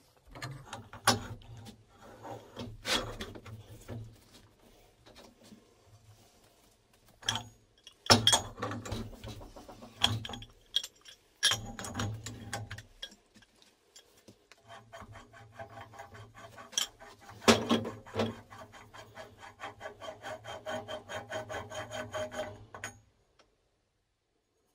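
A steel pipe wrench grips and turns a threaded steel pipe nipple, with scattered metal clanks and knocks from the wrench jaws on the pipe. Later comes a long run of even rasping clicks as the threads unscrew, stopping about a second and a half before the end.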